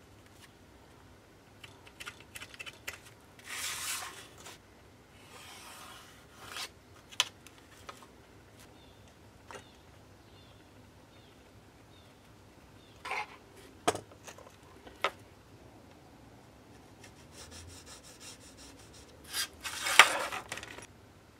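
Pencil scratching lines onto thin plywood, with light clicks and scrapes of a steel rule, calipers and a small square being set down and slid on the sheet. The sound comes in short bursts separated by pauses, and the loudest scratch and click come near the end.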